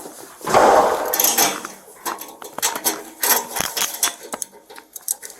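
A loud rustling burst, then a run of small irregular clicks, clinks and knocks, like metal and hard objects being handled.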